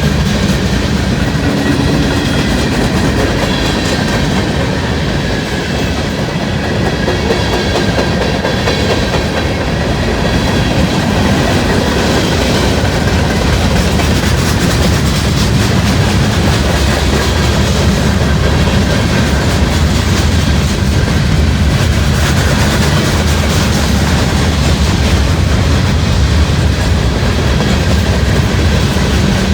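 A long freight train's cars rolling past steadily, wheels clicking over the rail joints.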